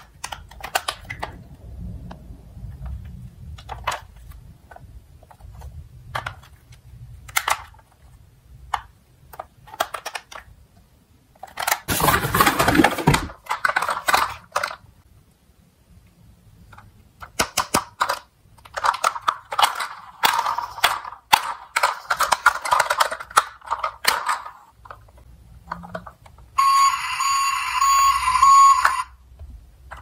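Plastic toy fire trucks handled in a cardboard box: scattered clicks and knocks, a burst of rattling clatter about twelve seconds in, and denser clattering later. Near the end a toy fire truck's electronic alarm-like sound effect plays for about two seconds.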